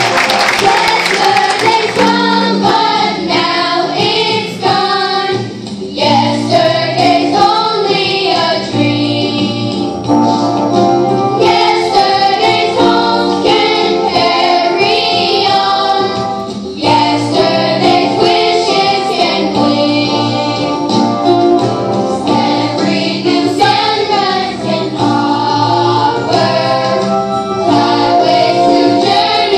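Children's choir singing a song together, voices sustained and shifting in pitch, with brief dips in loudness around the phrase breaks.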